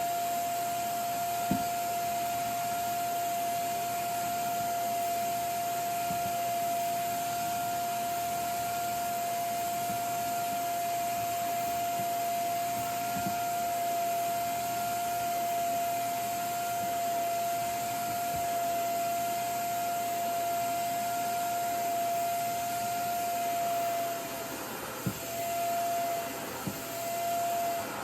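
Revair reverse-air hair dryer running: a steady rush of suction air with a high, steady whine on top. The whine wavers and dips briefly a few times near the end, and a few light knocks sound.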